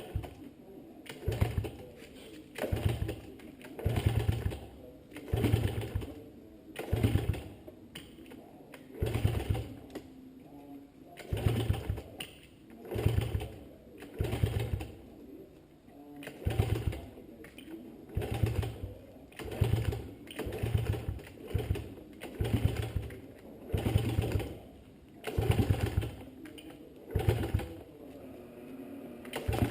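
Honda CRF70's single-cylinder four-stroke engine being kick-started over and over on its first start after a top-end rebuild, choke on. Each kick turns the engine over in a short burst, about one a second or a little slower, and it does not settle into a steady run.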